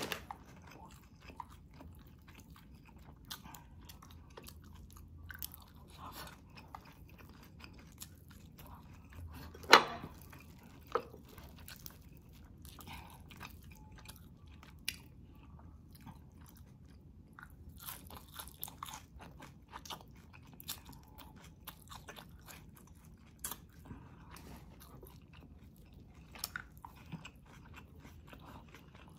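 Close-miked chewing and crunching of fried boneless milkfish (daing na bangus), with many small crackles and wet mouth sounds. One loud sharp crunch comes about ten seconds in, with a smaller one a second later.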